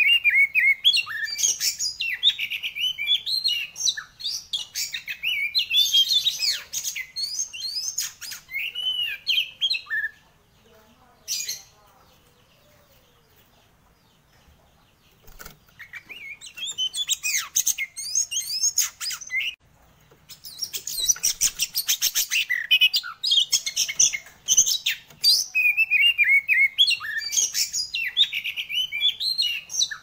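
Caged oriental magpie-robin (kacer) in full, loud song: a fast, varied stream of whistles, chirps and rattling notes. It breaks off for about five seconds near the middle, apart from one lone note, then resumes.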